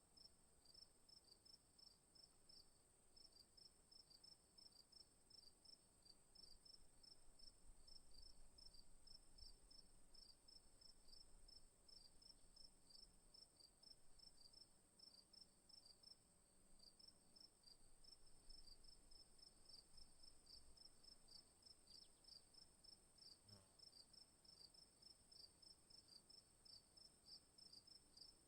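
Crickets calling, faint: a quick, even run of chirps over a steady high-pitched insect trill.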